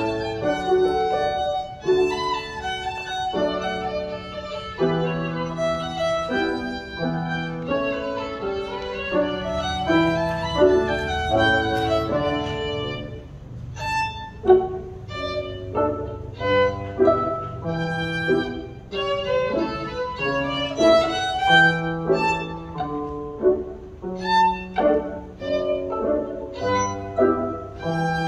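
Violin playing a quick tune of short, separated notes, with piano accompaniment underneath.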